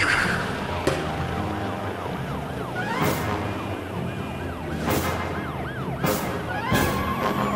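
Siren-like sound effect wailing up and down two or three times a second over background music, with several short hissing swooshes.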